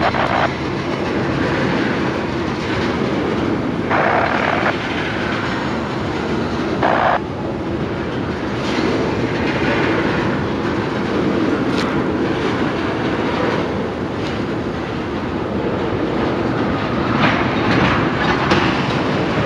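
Freight train of ethanol tank cars rolling past: a steady rumble of steel wheels on the rails, with clickety-clack at the rail joints and a brighter hiss from the wheels a few times.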